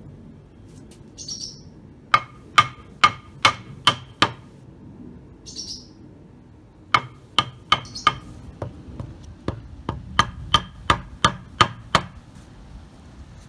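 Claw hammer striking a pine wood block held against the aluminium frame of a sliding glass door, knocking the side frame away from the bottom slide rail. The blows come in a run of about six, then after a pause a longer, quicker run.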